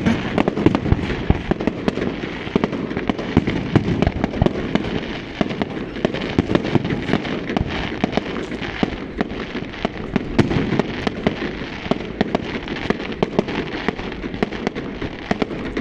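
Fireworks display: a continuous, dense barrage of sharp bangs and crackling, many reports a second at irregular intervals.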